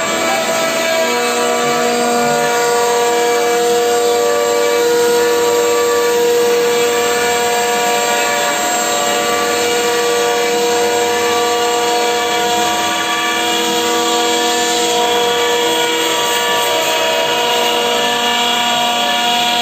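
CNC router spindle running steadily as its bit cuts a groove through an MDF sheet: an even whine of several steady pitches over the hiss of the cut.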